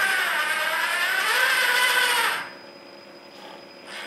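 Drivetrain of a 1/14 scale RC 6x6 dump truck whirring as its wheels spin in the air with the differentials locked, so all wheels turn together. The whine wavers up and down in pitch and stops about two and a half seconds in.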